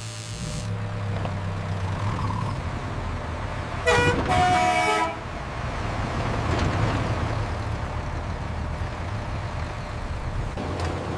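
Truck engine running steadily, with a horn honking twice in quick succession about four seconds in.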